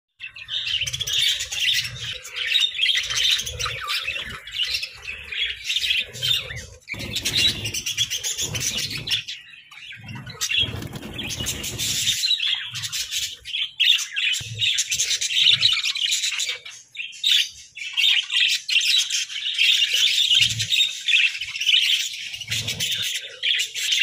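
Budgerigars chirping and chattering nonstop, a dense overlapping twitter, with occasional low bumps and rustles.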